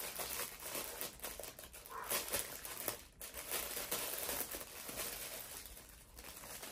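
Packaging crinkling and rustling in bursts as a package is handled and opened.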